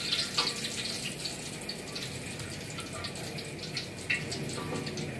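Thin strips of tempeh frying in hot oil in a wok: a steady sizzle with crackles, and clicks and scrapes of a spatula stirring and lifting the pieces.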